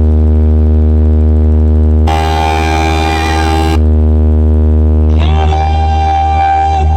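A loud, steady, low droning tone. A brighter, buzzier layer joins it about two seconds in and drops out under two seconds later. A higher steady tone comes in about five seconds in.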